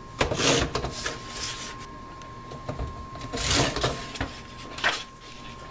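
Carl rotary paper trimmer cutting paper: the blade carriage slides along its rail twice, about three seconds apart, with a short click near the end.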